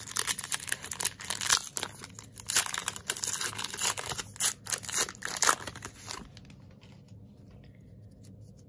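A 2020 Topps Heritage High Number baseball card pack wrapper being torn open and crinkled by hand: a run of sharp tearing and crackling that stops about six seconds in.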